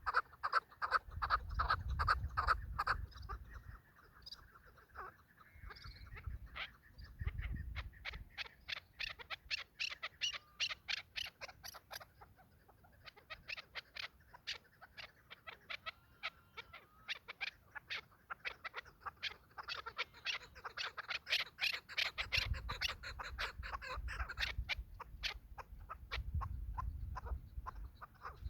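Chukar partridges calling in long runs of rapid, repeated chuck notes, with a pause about halfway through. Low rumbles come and go underneath, near the start and again near the end.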